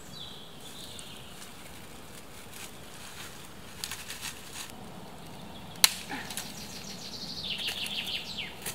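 Dry twigs and brush crackling and snapping as they are handled and pressed into place by hand, with one sharp snap about six seconds in and a quick run of crackling near the end.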